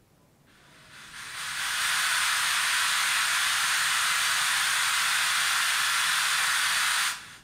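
Pink noise test signal played through the treble band of a three-way PA system, a steady hiss with nothing below about 1 kHz where the crossover cuts it off, checking that the high-frequency way sounds on its own. It fades up over the first two seconds and stops abruptly about seven seconds in.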